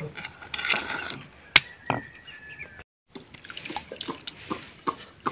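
Freshwater snail shells clicking and knocking against one another and against steel pans as they are handled and washed by hand, with a little water splashing.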